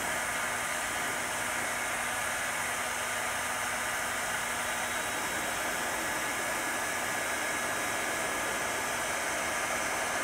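Bosch heat gun running steadily, blowing hot air in an even hiss with a faint high whine.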